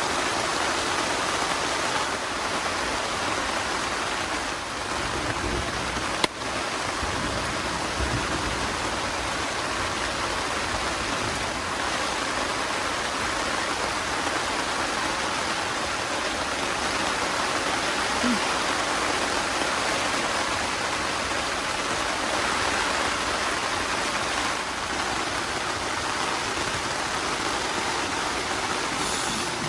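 Steady hiss of rushing water, with one sharp click about six seconds in.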